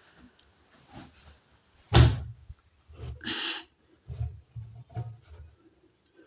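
Dry clothes being pulled out of a washing machine and handled: a sharp knock about two seconds in, a brief rustle of fabric, then a few soft thumps.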